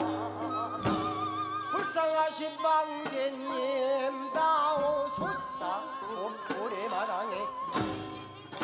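Korean traditional shamanic music for ssitgim-gut: a wavering melody with heavy vibrato over a long held tone, in a traditional ensemble of winds and bowed strings. A few sharp percussion strokes fall about one a second in the first seconds, with another near the end.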